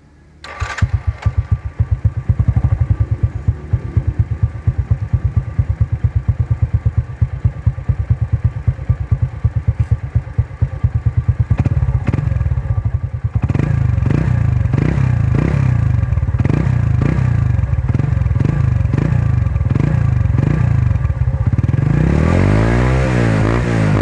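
Underbone motorcycle's small single-cylinder four-stroke engine running through an Organ Sport chicken-pipe aftermarket exhaust. It comes in about half a second in and idles with an even, pulsing exhaust note. From about 13 seconds it takes a string of quick throttle blips, roughly one a second, then a longer rev rising in pitch near the end.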